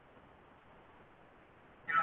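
Faint steady hiss, then a loud animal call starts suddenly near the end.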